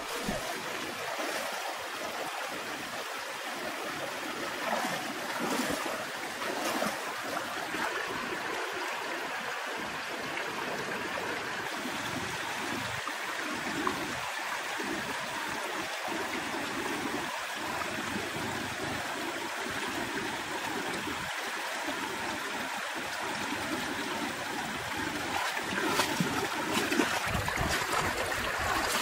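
Shallow stream running over rocks, a steady rush of water. Near the end, louder splashing as legs wade through the water.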